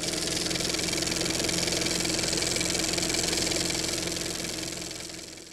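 Film projector sound effect: a steady mechanical whir with a fast rattle, fading out near the end.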